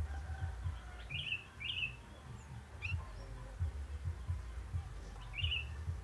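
Sooty-headed bulbul giving short chirps: two quick ones about a second in, another near three seconds, and one more near the end. Irregular low thumping noise runs underneath.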